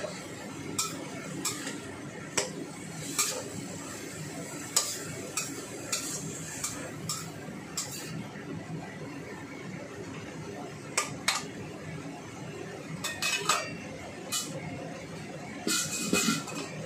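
Metal spatula clinking and scraping against a stainless steel wok while beef and vegetables are stir-fried, in irregular clanks a second or so apart that bunch together near the end, over a steady low hiss.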